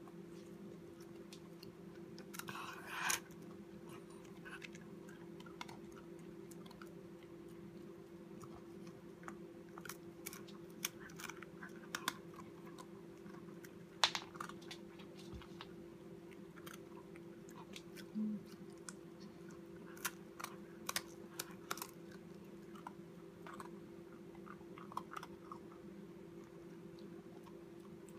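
Corgi puppy gnawing on a hard bone-shaped dog biscuit: irregular crisp crunches and clicks of teeth on the biscuit, the loudest about three seconds in and again near the middle. A steady low hum runs underneath.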